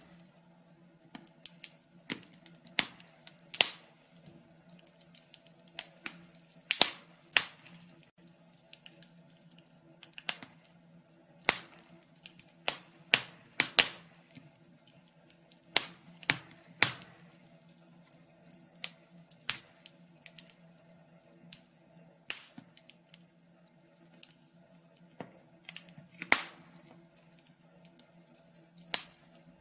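Wood fire crackling: irregular sharp pops and snaps, several close together in quick runs, over a faint steady hum.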